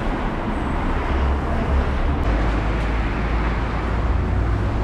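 Street ambience with road traffic: a steady wash of noise over a low rumble, with a slight change about two seconds in.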